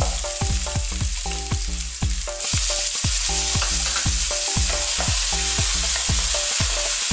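Garlic and onion frying in hot oil in a pan while being stirred with a wooden spatula. About two and a half seconds in, chopped tomato goes in and the sizzle turns suddenly louder and brighter.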